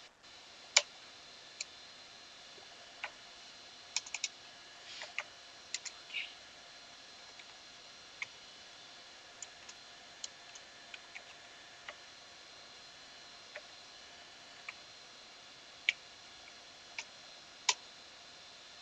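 Sparse, irregular clicks of computer keys being pressed, about two dozen spread unevenly over a faint steady hiss. The sharpest click comes about a second in.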